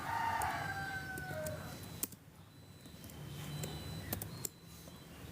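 A rooster crowing once: a call of nearly two seconds that drops in pitch at the end. A few faint clicks follow later.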